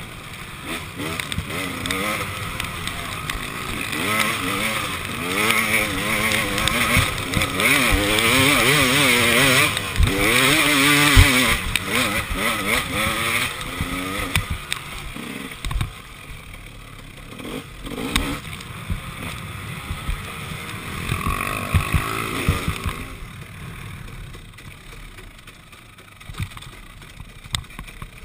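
KTM 300 XC two-stroke dirt bike engine being ridden hard: its pitch rises and falls again and again with the throttle. About halfway through it drops back to softer, off-throttle running, with scattered knocks, and it is quieter again near the end.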